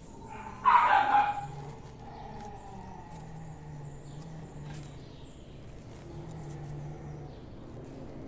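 A dog barks once, loudly, about a second in, followed by a faint steady low hum.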